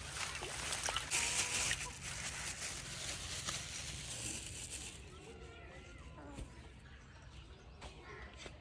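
Plastic bag crinkling and raw fish pieces splashing into a steel bowl of water. After about five seconds this gives way to hens clucking softly.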